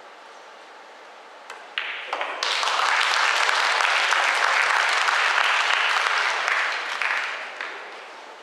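Audience applauding a pot that wins the rack in a pool match, starting with a faint click just before it and dying away near the end.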